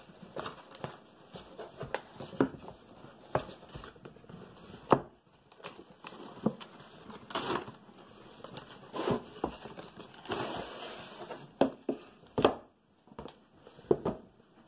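A kit's box and wrapping being opened and handled: scattered sharp taps and knocks with a few short stretches of crinkling and rustling.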